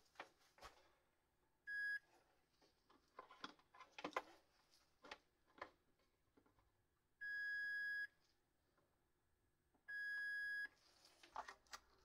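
A capacitor tester beeps three times while its test probes are held on the capacitors of a control circuit board. Each beep is a steady high tone: a short one, then two longer ones. Light clicks of the probes and handling come between the beeps.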